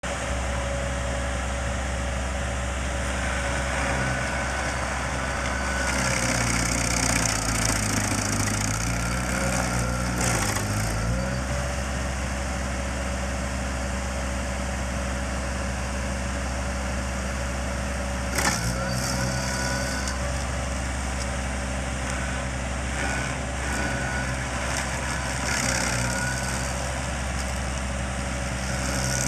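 Vermeer SC552 stump grinder's engine running steadily while its cutter wheel chews into a stump, with a hiss of flying wood chips. The engine pitch sags under load about six to eleven seconds in and recovers. A single sharp crack comes about two-thirds of the way through.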